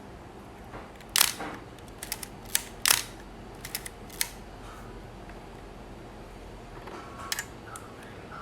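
Pentax K1000's mechanical cloth focal-plane shutter being fired and its film advance lever wound, a run of sharp clicks in the first half and one more near the end. The shutter is set to 1/1000, a speed the owner is not sure actually opens the curtain.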